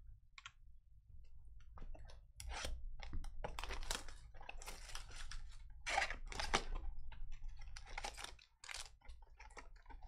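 Irregular clicking and rustling of hands at work: typing on a computer keyboard, then a cardboard trading-card hobby box being opened and its foil packs pulled out.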